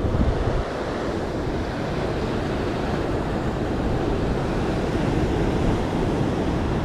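Ocean surf breaking and washing over the rocks of a jetty: a steady rush, with wind buffeting the microphone.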